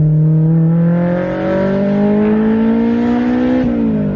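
Honda S2000's four-cylinder engine, loud through a Tomei single-exit titanium cat-back exhaust with the stock headers and catalytic converter, heard from the open-top cabin while accelerating. The engine note climbs steadily, then drops sharply at an upshift near the end.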